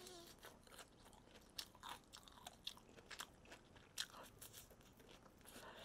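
Crispy fried chicken being bitten and chewed, with a run of short sharp crunches; the loudest crunch comes about four seconds in.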